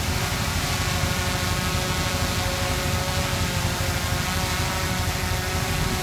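Heavy diesel engine of a construction machine running steadily, a fast low throb with several steady higher tones over it.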